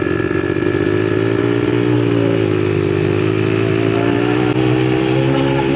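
ATV engine running while being ridden; its pitch dips about two and a half seconds in, then climbs again as the throttle opens.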